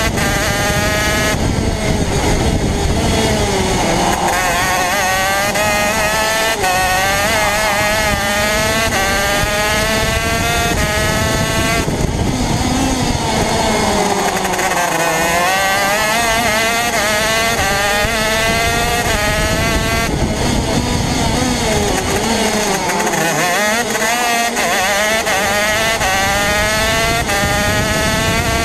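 Racing kart's two-stroke engine heard onboard at race pace. Its pitch climbs steadily down each straight, then drops sharply as the driver brakes for corners, over and over.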